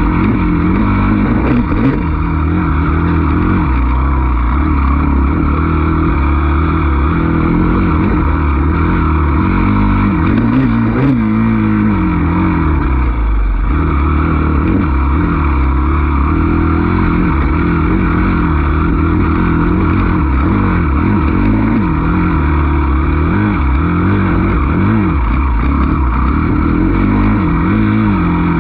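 Dirt bike engine running hard on a woods trail, its revs rising and falling over and over as the rider works the throttle and gears.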